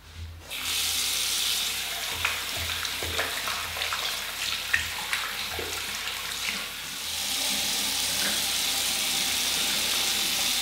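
Tap water running steadily into a sink, with scattered splashes as hands scoop water onto the face to wet and soften the beard before a wet shave. The running water starts about half a second in.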